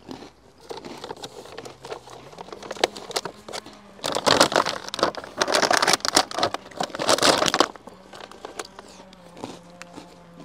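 Plastic food packaging crinkling as it is handled, with scattered clicks and a dense run of crinkling for a few seconds past the middle. A fly buzzes steadily throughout.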